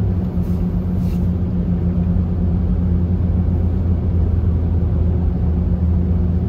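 Steady low drone of a Chevrolet Tahoe's engine and tyres while driving, heard inside the cabin.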